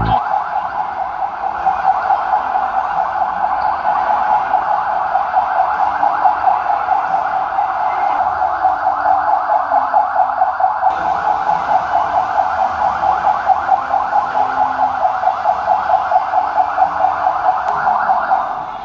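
A fast-warbling siren wailing without a break, pulsing about three times a second, then stopping suddenly.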